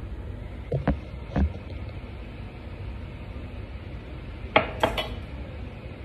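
Ceramic coffee cup set down on a marble countertop: two sharp clinks about four and a half seconds in, over a steady low background hum. Two softer knocks come about a second in.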